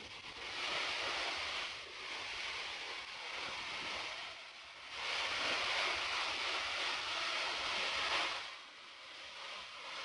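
Steady rushing roar of a tall waterfall, about 80 metres high, swelling louder twice, briefly about a second in and for about three seconds from the middle on.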